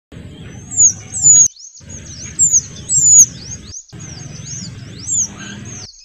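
Kuniran (mantenan kecil) birds calling busily: thin, high, quick down-slurred whistles that overlap one another, with the loudest notes coming in short bunches every second or so.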